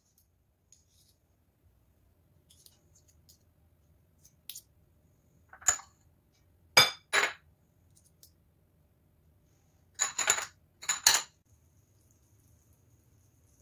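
Metal spoon clinking and scraping against a small glass bowl while scooping crumbled goat cheese: several separate sharp clinks, some ringing briefly, with quiet between.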